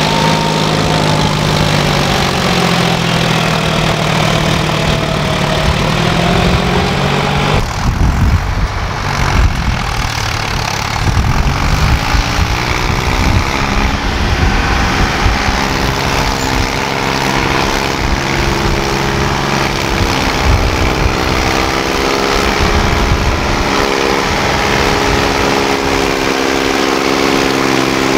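Diesel tractor engines labouring under heavy load while hauling loaded soil trolleys through sand, their pitch rising and falling with the strain. The John Deere 5050 D is heard first, then, after a sudden change about eight seconds in, a Mahindra tractor engine.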